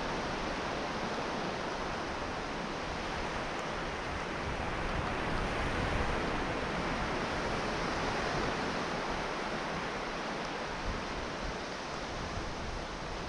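Sea surf breaking and washing in, a steady rushing that swells a little midway, with wind mixed in.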